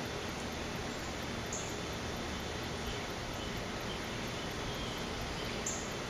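Steady outdoor background noise, an even hiss with no clear calls, broken by two faint, brief high-pitched sounds about a second and a half in and near the end.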